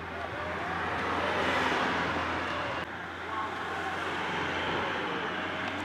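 Publicity-caravan floats and vans driving past close by, a steady engine and road noise with a low hum. The sound changes abruptly about three seconds in.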